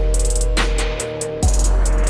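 Instrumental hip-hop beat: drum-machine drums with quick hi-hats and deep bass under a held synth note. The bass drops out for about half a second near the middle and comes back with a kick.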